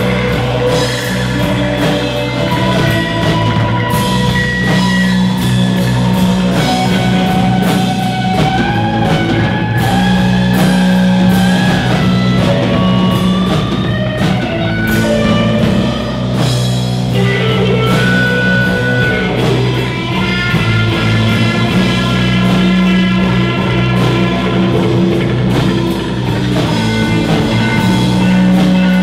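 Live rock band playing an instrumental passage: electric guitar playing held notes and melodic lead lines over a drum kit and steady low bass notes.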